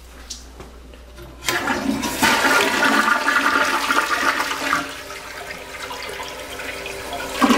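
Toilet flushing: about a second and a half in, a sudden rush of water starts, stays loudest for about three seconds, then eases into a quieter, steady run of water.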